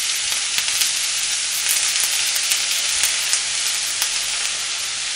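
Julienned radish and onion sizzling in sesame oil in a frying pan while being stirred with chopsticks: a steady frying hiss with short clicks of the chopsticks against the pan. The radish is being stir-fried for mu-namul, a Korean seasoned radish side dish.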